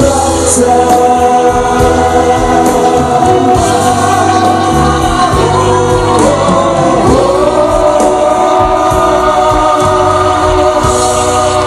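Male singer singing a Thai pop ballad live into a microphone over a backing track, with long held notes.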